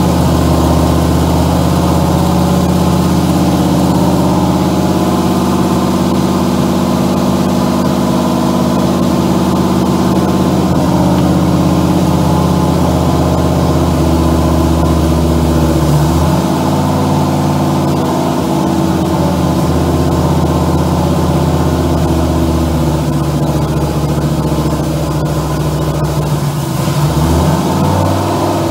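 1963 Oldsmobile Jetfire's 215 cubic-inch aluminium V8 running steadily at a high fast idle, set by guess at about 2000 rpm, on its first run for camshaft break-in. Its engine note shifts briefly about halfway through and again near the end.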